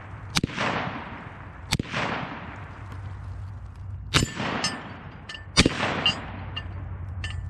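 Four rifle shots, spaced about one and a half to two and a half seconds apart, each with a long echoing tail. Lighter metallic clinks follow between and after the last shots.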